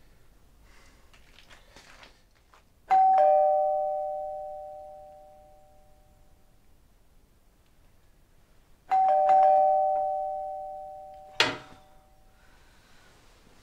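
A two-tone doorbell chime rings twice, about six seconds apart: each time a higher note then a lower ding-dong, both dying away over a few seconds. A sharp click comes about two seconds after the second chime.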